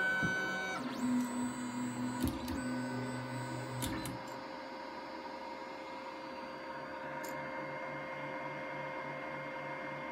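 Geeetech A20M 3D printer running: its stepper motors whine at steady pitches that shift a few times over the first four seconds, with a few sharp clicks. After that, a steady machine hum with a soft low pulse of about two or three beats a second.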